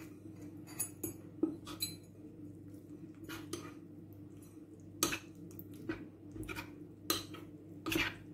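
Metal spoon stirring cornstarch into a little water in a ceramic bowl, clinking and scraping against the bowl at irregular intervals. A steady low hum runs underneath.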